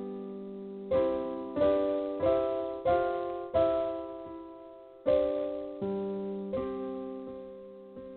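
Background piano music: soft chords struck every half second to a second, each fading away.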